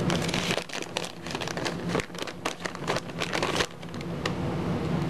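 Plastic bag of shredded cheese crinkling and rustling as handfuls are sprinkled over the casserole, stopping about three and a half seconds in.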